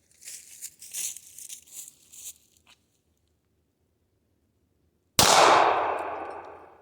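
A single .380 ACP pistol shot from a Glock 42 about five seconds in, sharp at the start and then fading away over about a second and a half.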